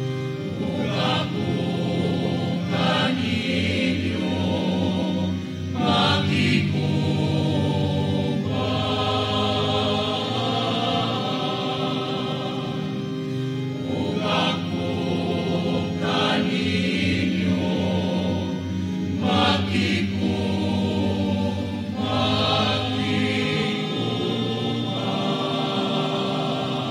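Mixed choir of men and women singing a sacred hymn, accompanied by an electronic keyboard.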